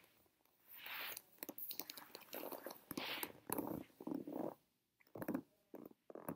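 A bristle hairbrush scratching and rustling through a doll's long synthetic hair in a run of repeated strokes, with fine clicks from the bristles. A few shorter strokes come near the end.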